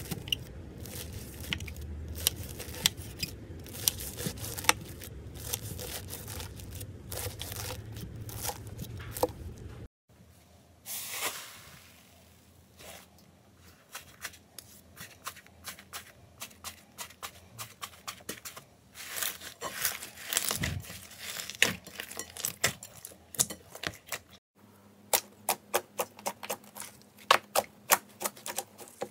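Slime ASMR: foam-bead floam slime crackling densely as a knife slices through it, then softer squishes and clicks as a bowl of slime with a crunchy topping is kneaded. Near the end come rapid sharp pops as fingers press into thick yellow slime.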